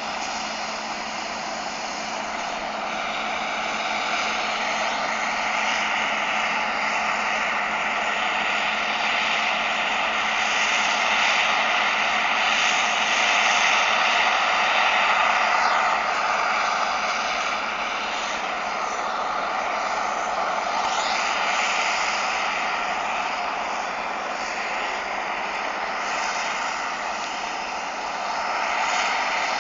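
Harvest machinery running steadily, a continuous engine and machine drone that swells and eases slightly in level.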